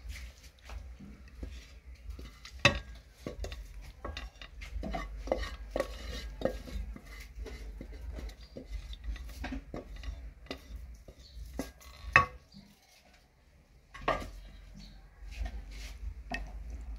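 Wooden spoon scraping and knocking inside a metal pot as thick stew is emptied out, a run of short scrapes and clicks with a few sharper knocks.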